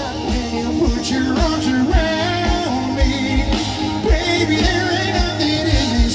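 A band playing a pop-rock song: a singer over guitars, with a steady kick-drum beat about twice a second.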